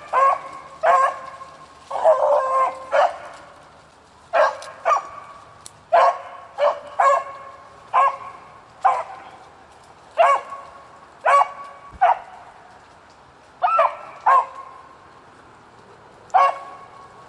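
Rabbit-hunting dogs barking repeatedly at a baby rabbit they have found that will not run. The barks are short and sharp, roughly one a second, with some in quick pairs and a short cluster about two seconds in.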